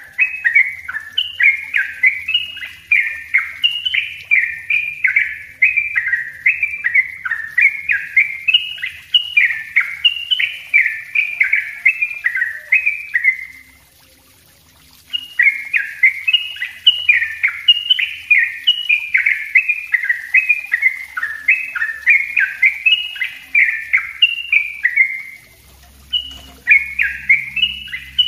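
Yellow-vented bulbul (trucuk) singing its rapid, tightly packed chattering song, a continuous run of short sliding chirps. The song breaks off for about a second midway and again near the end, then resumes.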